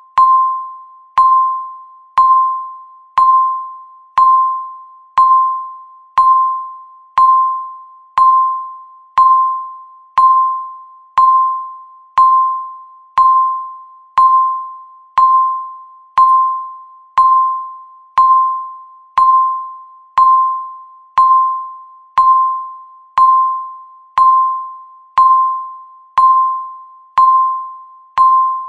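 Countdown timer beeping once a second: a single mid-pitched electronic tone with a sharp start that fades away before the next beep, evenly repeated.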